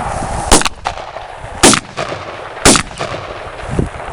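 Gunshots: three sharp, loud shots about a second apart, then a fainter thump near the end.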